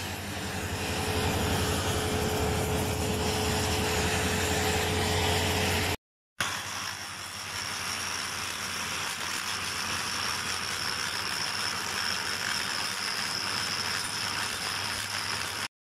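Oxy-fuel cutting torch flame running on a steel towing socket, with a steady hum under it. About six seconds in the sound breaks off briefly, and then an angle grinder runs steadily against the socket's steel, with a high whine over the grinding noise.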